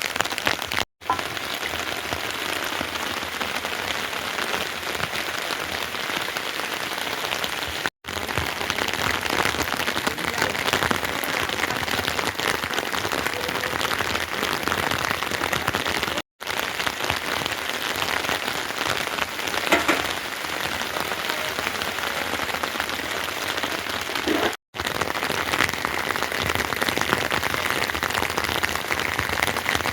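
Heavy rain falling steadily, a dense, even patter of countless drops. The sound cuts out for a split second four times.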